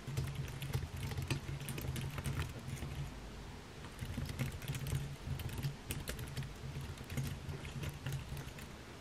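Typing on a computer keyboard: a quick run of keystrokes, with a brief pause about three seconds in.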